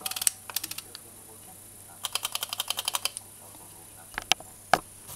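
Aperture ring of a Hoya HMC 70-150 mm f/3.8 zoom lens being turned through its click stops: a few clicks at first, then a quick run of about a dozen clicks. A few louder, sharper clicks of the lens being handled follow near the end.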